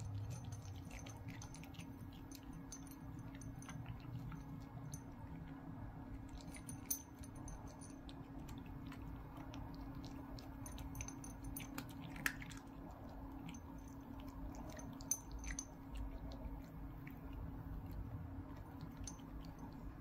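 A Turkish Angora cat crunching dry kibble from a ceramic dish: quiet, irregular crunches and small clicks, with a few sharper clicks, over a faint steady hum.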